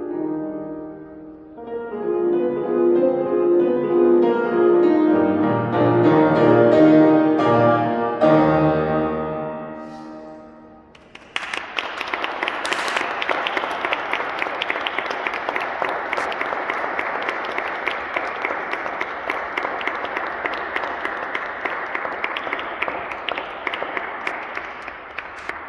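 Solo grand piano playing the closing bars of a piece, swelling louder and then dying away on a final sustained chord about ten seconds in. A moment later audience applause breaks out and continues steadily.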